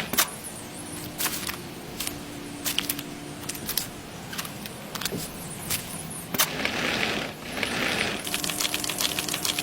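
Small hand tools working on miniature building materials: scattered sharp taps and knocks, then a few seconds of rough scraping about two-thirds of the way through.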